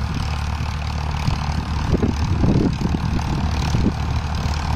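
Farmtrac 60 PowerMaxx tractor's diesel engine running steadily under load as it pulls a harrow through a field.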